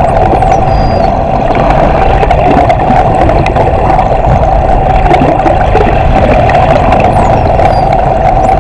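Bottlenose dolphin whistles heard underwater: one falling in pitch near the start and two more shortly before the end, with scattered faint clicks, under a loud steady boat-engine drone carried through the water.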